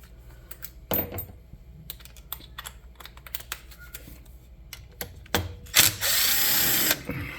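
Metal clicks and knocks of bolts and hand tools being handled, then a power drill running in one short burst of about a second near the end, driving a bolt.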